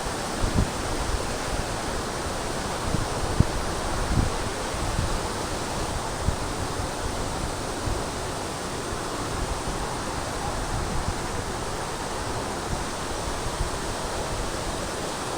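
Waterfall rushing steadily, with wind buffeting the microphone in short low gusts now and then.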